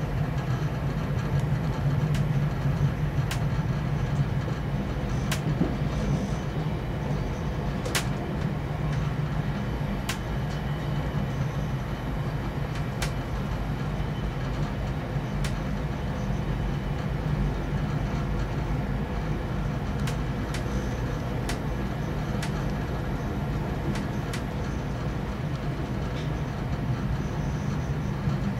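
Steady low rumble of a passenger rail car running at speed, heard from inside the car, with sharp clicks scattered through it. A freight train passes close by on the adjacent track.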